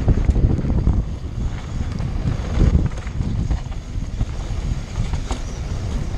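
Wind buffeting a helmet camera's microphone on a mountain bike descending a dirt trail at speed, a steady low rush with a few light clicks and rattles mixed in.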